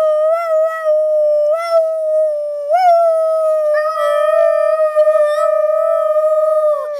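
A child's voice howling like a dog in one long held note, nearly level in pitch with small wobbles, stopping abruptly.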